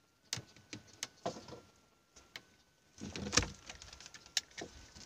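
Scattered sharp clicks and knocks, with a louder knock and rustle a little over three seconds in, over a faint thin steady high tone.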